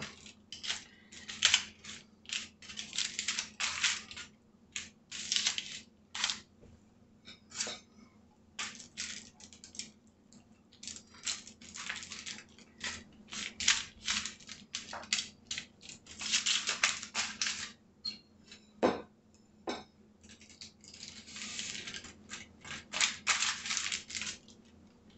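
Aluminium foil crinkling and rustling in irregular bursts as hands press and rub raw chicken thighs on a foil-lined tray, with two brief knocks about three-quarters of the way through.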